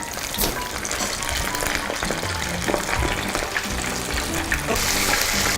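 Starch-coated chicken pieces sizzling and crackling in hot frying oil, with background music.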